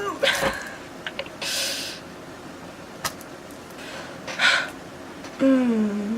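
A woman's wordless distressed noises: sharp breaths and sighs, then near the end a drawn-out whining hum that dips and rises in pitch. A few small clicks of objects being handled come in between.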